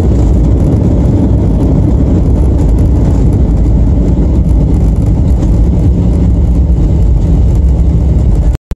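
Loud, steady low rumble of an airliner's jet engines and rushing air heard inside the passenger cabin. It cuts off suddenly near the end.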